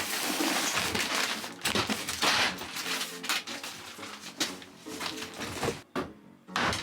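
Irregular clattering, rattling and knocks of hard objects being handled and pulled about, with noisy scraping bursts and a few sharp knocks.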